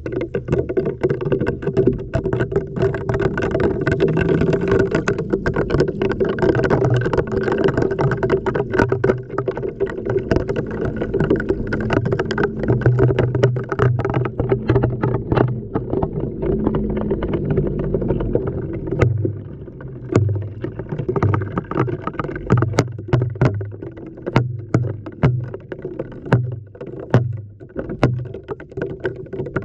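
Water sloshing and churning inside a running LG washing machine drum, heard from a camera tumbling in the wash, over a steady hum. Sharp knocks and clicks run throughout as the camera and glow sticks hit the drum. In the second half, repeated low thuds come about once a second as the load tumbles.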